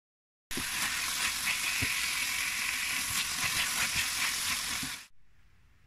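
Minced pork, bell pepper and corn sizzling in a frying pan as they are stirred with a wooden spatula, with scattered scrapes and light knocks of the spatula. The sizzle starts sharply about half a second in and cuts off about five seconds in.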